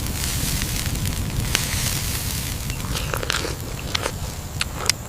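Open wood fire crackling, with sharp pops scattered through it over a steady low rumble.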